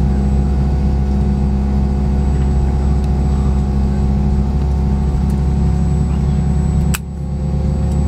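Steady low drone of an MD-90's rear-mounted IAE V2500 turbofan running at idle, heard inside the cabin beside the engine, with several steady hum tones. About seven seconds in there is a sharp click, and the drone briefly drops before building back up.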